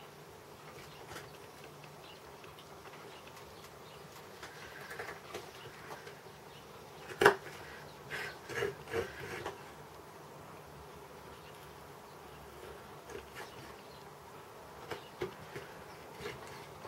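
Chip-carving knife cutting into wood: scattered short clicks and scrapes, the loudest a sharp crack about seven seconds in and a small cluster just after, over a steady faint hum.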